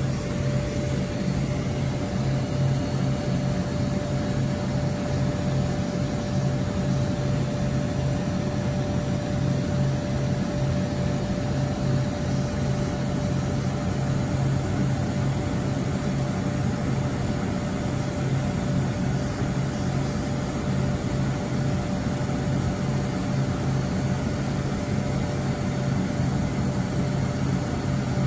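WFL M35G Millturn CNC turning center running steadily behind its enclosure window: an even machine hum with a constant mid-pitched whine, no cutting chatter or knocks.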